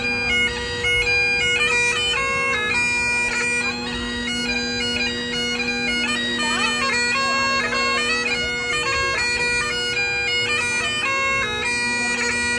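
Great Highland bagpipe played solo: a steady drone held throughout under a quick, ornamented chanter melody.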